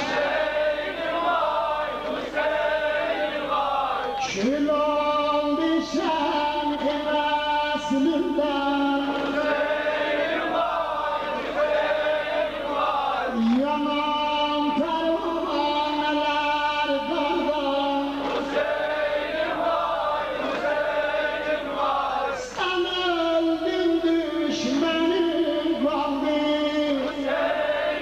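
A group of voices, mostly male, chanting a sung lament together, holding long wavering notes in phrases of a few seconds each.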